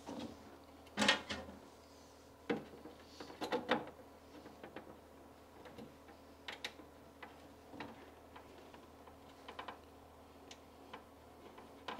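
Scattered small clicks and taps of a hand tool working M4 domed-head screws into riv nuts through a carbon fibre panel. The loudest clicks come about a second in, with a cluster around three and a half seconds and fainter ticks after.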